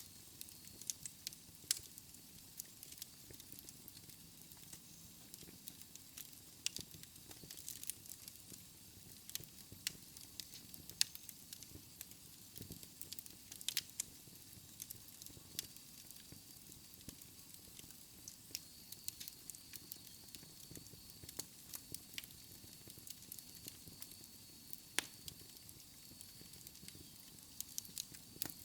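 Wood fire in a fireplace crackling, with irregular sharp pops and snaps of burning logs over a faint steady hiss of the flames. A faint, thin, high whistle sets in about halfway through and holds.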